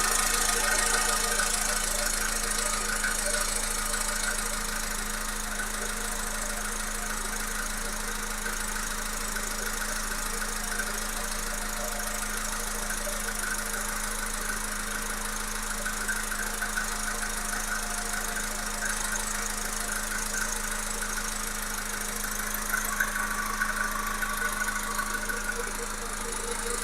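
Volkswagen Polo Sedan's 1.6 CFNA four-cylinder petrol engine running steadily with an engine knock.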